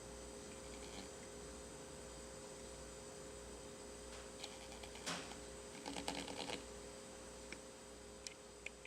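Steady electrical hum over faint hiss, with a sharp click about five seconds in and a short run of clicks and knocks about a second later.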